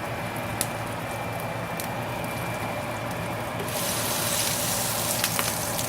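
Banana pancakes sizzling in hot oil in a frying pan: a steady hiss that grows brighter and a little louder about two-thirds of the way through, with a few light clinks of a utensil early on.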